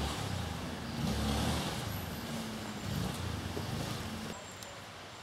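A motor vehicle engine running, its low hum rising and falling in pitch, then dropping away about four seconds in.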